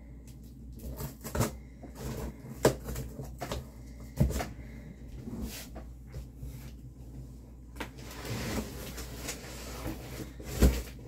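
A cardboard shipping box being handled and opened with scissors: several sharp knocks and thumps, the loudest near the end, with a stretch of scraping and rustling about two-thirds of the way through.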